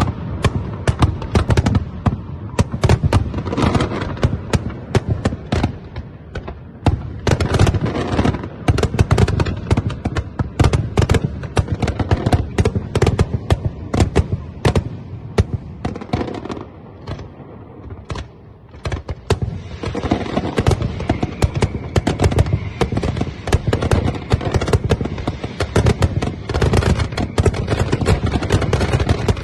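A fireworks display firing shells in a rapid, near-continuous barrage of bangs and booms, thinning out briefly about sixteen seconds in, then packing into a dense rumble of explosions. This is the fault in which the firing computer launched almost the whole show at once.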